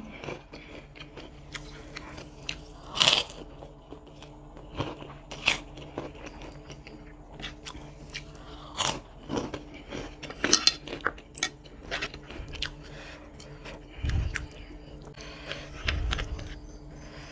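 Close-up biting and crunchy chewing of a crisp fried cracker (kerupuk), sharp crunches every second or so. There are a couple of dull low knocks near the end.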